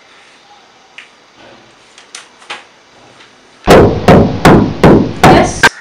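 Loud, rapid knocking on a door, about six sharp knocks a third of a second apart, starting a little past halfway.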